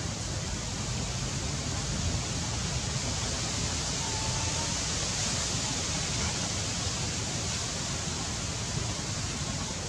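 Steady outdoor background noise: an even hiss over a low rumble, with a faint short high note about four seconds in.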